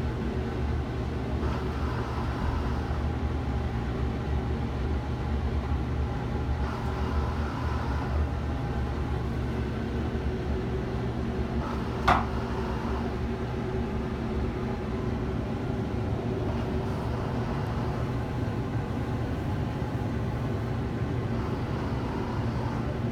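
Steady low mechanical hum inside a riding Ferris wheel gondola, with a few faint steady tones in it. A single sharp click about halfway through.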